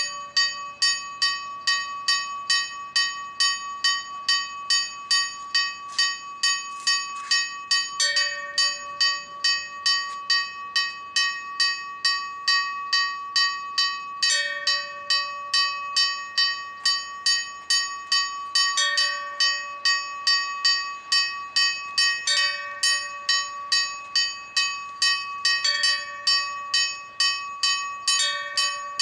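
Four church bells ringing a festive peal: a fast, even run of strikes on the higher bells, about two or three a second, with a deeper bell struck once every few seconds.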